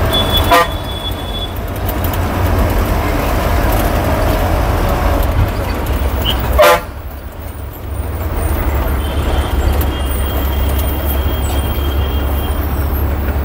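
Moving city bus heard from inside: a steady low engine drone, with horns tooting in the traffic around it. Two sharp knocks ring out, one just after the start and one about halfway.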